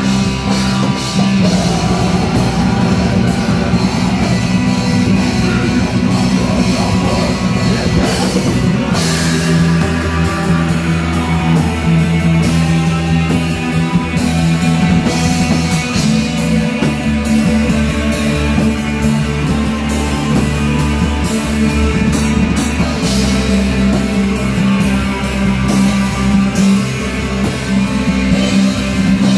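Heavy metal band playing live: distorted electric guitars over a drum kit, loud and unbroken.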